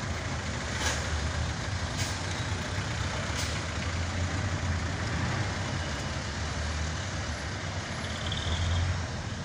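Engine of a large vehicle running steadily as it rolls slowly through traffic, heard from inside its cab, with a few brief clicks in the first few seconds.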